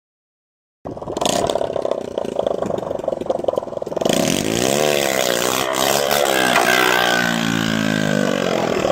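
Motorcycle engine running after a second of dead silence. From about four seconds in its pitch swings up and down several times as the throttle is blipped, with a loud rushing noise over it.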